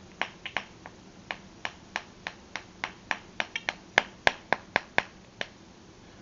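Bubbles of a rainbow pineapple-shaped silicone push-pop fidget toy being pressed one after another, about twenty sharp pops a few a second, stopping shortly before the end.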